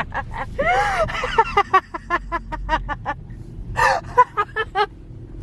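Young women laughing in quick runs of short bursts, once about a second in and again near four seconds, over a low rumble.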